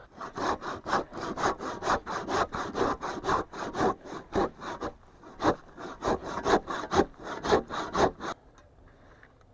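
Handsaw cutting through a wooden log with steady back-and-forth strokes, about two a second, with a short pause about halfway and an abrupt stop near the end.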